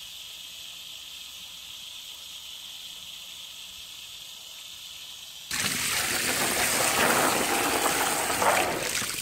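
Water gushing and splashing onto a wet surface, starting suddenly about five and a half seconds in and running loudly to the end; before that, only a faint steady hiss.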